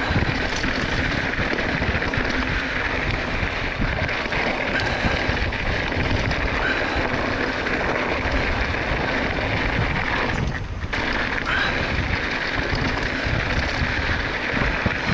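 Wind rushing over the microphone of a mountain bike's handlebar camera as it rides fast down a rocky desert singletrack, mixed with the tyres on dirt and gravel. The noise drops away briefly about ten seconds in.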